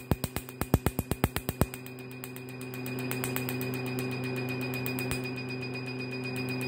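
Q-switched Nd:YAG laser handpiece firing over carbon-coated facial skin: a rapid run of sharp clicks, about nine a second, for the first second and a half. Under them the laser machine's steady hum carries on, with a faint fast ticking throughout.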